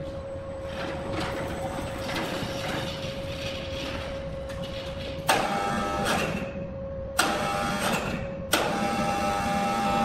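Steady machinery hum with a thin steady whine. Then an electric hoist motor kicks in with a sudden jump about halfway through and twice more, whirring as it lifts a heavy sawn wood slab on cables.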